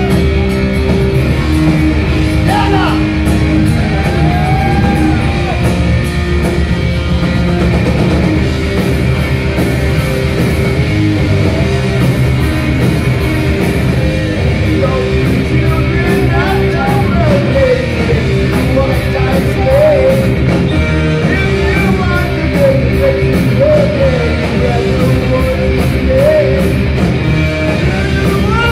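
Loud, steady heavy rock music with singing over a full band.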